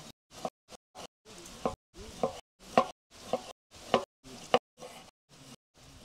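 Knife chopping on a cutting board in an even run of short, sharp strokes, about two a second, growing fainter near the end.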